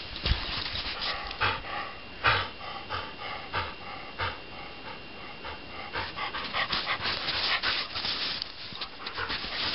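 A dog panting hard, a breath a little under every second, then the scraping crunch of the dog rolling on its back in crusty snow in the second half.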